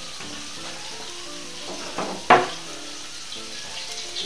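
Steady sizzling of potatoes frying in a pan, with a couple of sharp knocks about two seconds in.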